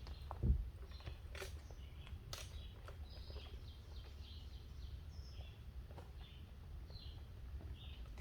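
Footsteps and scattered taps on a woodland trail, with a bird chirping a run of short high notes in the middle.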